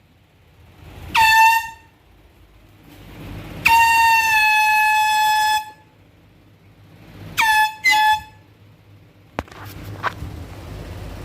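Handheld canned air horn sounding in separate loud blasts: a short blast about a second in, a long blast of about two seconds, then two quick short blasts. Each blast dips sharply in pitch as it starts, then holds a steady, piercing high tone. Two sharp clicks sound near the end.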